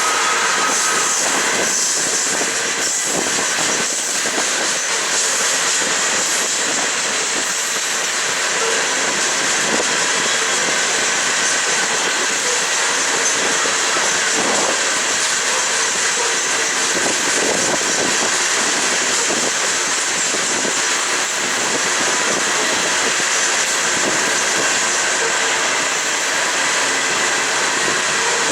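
Union Pacific coal train rolling past on a curve: a steady, unbroken rumble and rush of the wheels on the rails, with a faint thin wheel squeal running under it.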